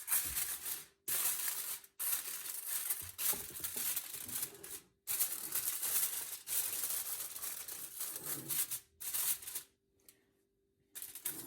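Aluminium foil crinkling and tearing as it is pressed over a baking dish, in several stretches broken by short gaps.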